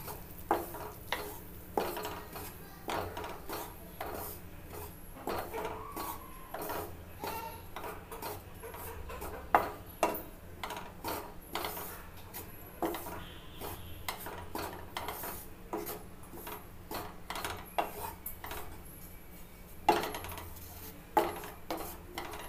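Wooden spatula scraping and knocking against a nonstick kadai while flour is stirred and roasted on a low flame, in irregular strokes with a few louder knocks.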